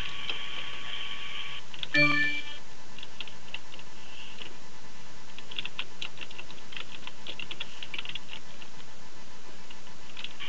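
Computer keyboard typing: scattered irregular key clicks. A short beep sounds about two seconds in.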